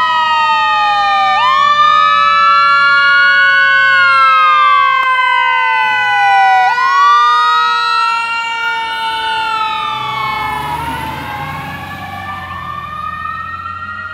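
Fire engine-tanker's siren wailing, its pitch sweeping up and falling back in slow cycles of about five seconds, over steadier tones. As the truck passes, about eleven seconds in, the pitch drops and the engine's rumble comes through, then it all fades.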